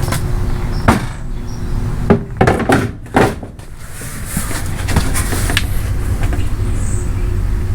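Several knocks and clunks, about one and three seconds in, as the trimmed fiberglass front bumper is handled and set against the car's front end, over a steady low rumble.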